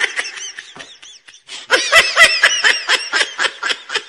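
High-pitched laughter in a quick run of short pulses. It fades back for a moment about a second in, then comes back louder.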